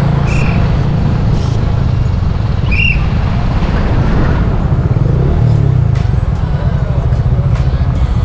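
Motorcycle engines running at low speed with a steady low rumble as the bikes roll slowly off the road; two short high chirps, about half a second and about three seconds in.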